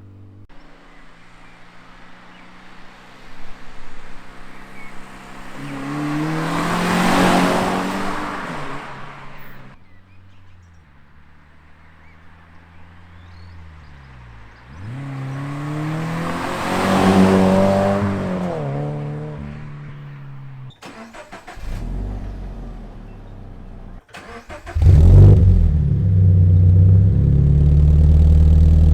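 Toyota GT86's flat-four engine and exhaust as the car drives past twice, each pass swelling and fading with the engine pitch climbing then dropping. After a few abrupt cuts, a loud, deep, steady engine rumble starts suddenly about 25 seconds in.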